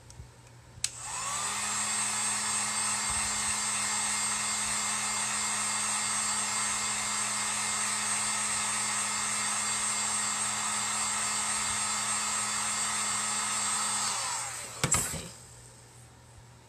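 Handheld craft heat gun switched on with a click, its fan motor spinning up to a steady whir and rush of hot air as it dries stencil ink on a ceramic bowl. After about thirteen seconds it winds down, followed by a sharp knock.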